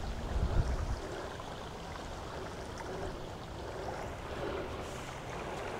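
A breeze: wind buffets the microphone with a low rumble for about the first second, then settles into a steady soft rushing.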